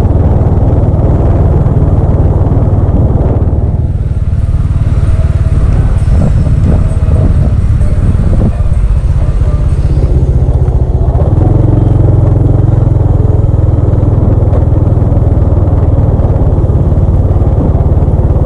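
Motorcycle engine running steadily as the bike rolls along at low speed, heard close up from the bike itself.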